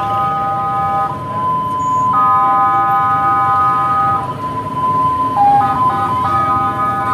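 Indonesian bus 'telolet' horn, a multi-tone musical air horn, playing steady chords. One note holds almost throughout while the notes around it drop out for about a second near the start and again around the middle, then come back with changing notes.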